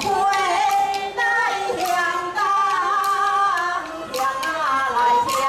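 Bendi gezai (Taiwanese opera) singing: a voice holding a wavering, ornamented melody over instrumental accompaniment, with a few sharp percussive strikes.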